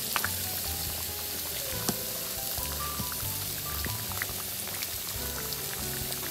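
A pot of coconut-milk catfish soup simmering, with a steady bubbling hiss and small pops, under soft background music.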